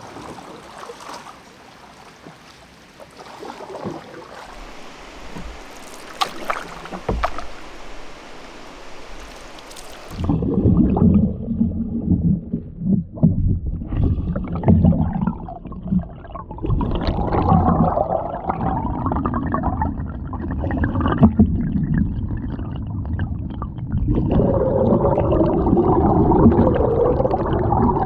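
Canoe being paddled on a lake: faint water sounds with a few sharp knocks for about ten seconds. It then cuts suddenly to a camera held underwater beside the hull, where the sound turns louder, muffled and dull. Paddle strokes churn bubbles and the water gurgles in uneven surges.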